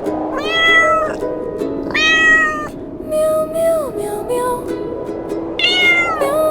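A cat meowing three times, with high, arching calls at the start, about two seconds in and near the end, over background music.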